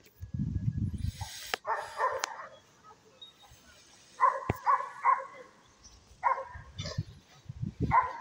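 A dog barking repeatedly, in short separate barks coming in small groups.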